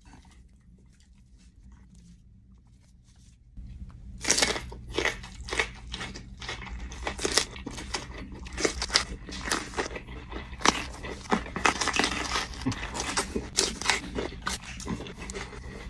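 Crunching bites and chewing of a raw chile pepper, close to the mic. The run of sharp, irregular crunches starts about four seconds in and goes on to near the end.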